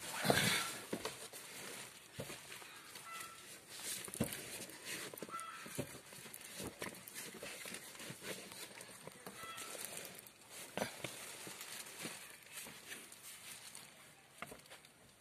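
Handling noise from a phone being moved about inside a car: a loud rustle just after the start, then scattered light knocks and rustles.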